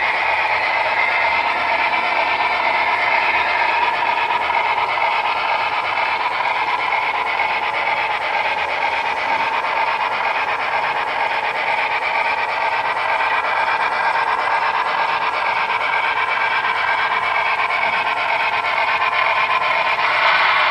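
HO-scale Broadway Limited brass-hybrid model of a Northern Pacific A-3 4-8-4 steam locomotive running with a freight train. It gives a steady train sound: the engine's onboard sound system plays steam-locomotive running sounds over the rolling of the model cars.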